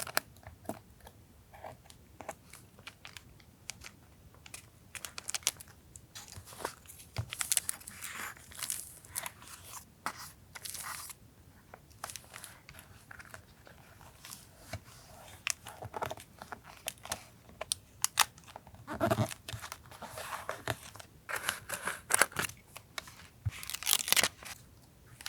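Paper being handled for journal collage: crinkling, rustling and tearing in irregular bursts, with small taps and clicks.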